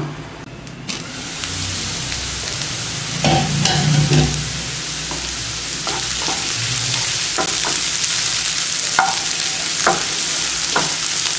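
Diced carrots and green beans sizzling in a nonstick frying pan as a spatula stirs them, with about ten short scrapes and taps of the spatula against the pan. The sizzle is the little water added for steaming cooking off.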